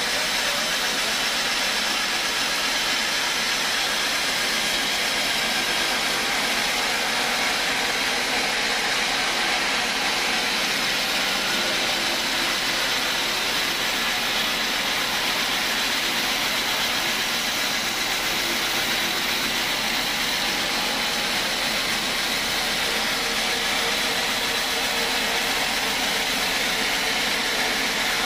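Large band sawmill running steadily, its blade cutting lengthwise through a timber slab: a loud, even noise with no breaks.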